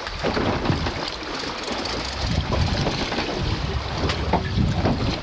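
Wind buffeting the microphone over the wash of sea water around a small boat, gusting unevenly.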